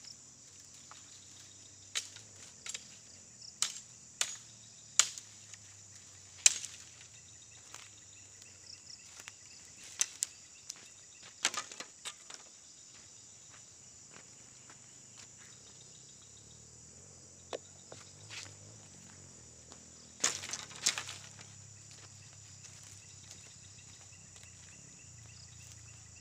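Dry bamboo stalks cracking and knocking as they are pulled out of a tangle of dry brush: about a dozen sharp, irregular snaps, most in the first half and a close pair about twenty seconds in. A steady high insect chorus runs underneath.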